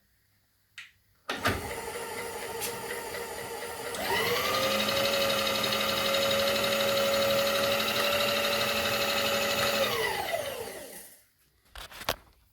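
An electric motor starts about a second in and runs, then speeds up with a short rising whine and holds a steady pitch for about six seconds, before winding down and stopping near the end.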